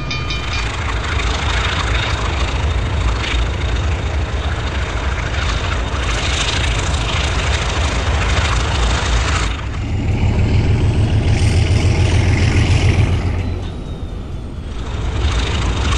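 Diesel locomotives running: a loud, steady rumble and rolling noise over a low engine throb. About ten seconds in, a heavier, pulsing engine throb takes over for a few seconds, then the noise dips and swells again near the end.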